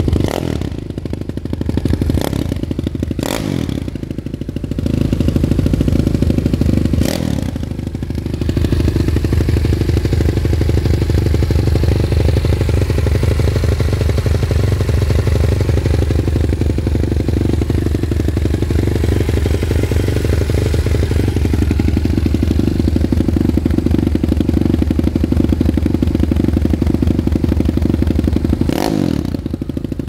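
Dream Pitbike 165cc single-cylinder engine running through its exhaust: uneven for the first few seconds, with a few sharp clicks, then louder and steady from about eight seconds in.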